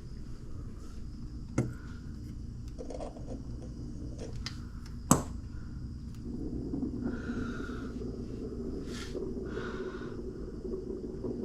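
Two sharp knocks, a small one about a second and a half in and a louder one about five seconds in, over a steady low hum and light scraping.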